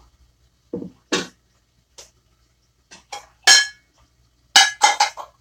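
Dishes clinking and clattering as they are handled and stacked into a kitchen cupboard: a series of separate knocks and clinks, with a quick cluster of them near the end.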